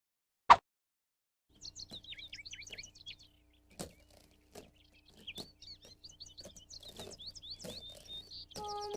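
Cartoon background track of small birds chirping rapidly, with a scatter of short knocks among the chirps. A single sharp click comes about half a second in, and a brief pitched tone just before the end.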